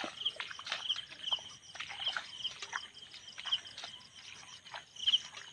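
Night-time animal chorus: a short chirping call repeated every half second or so over a steady high insect trill, with scattered sharp clicks and taps.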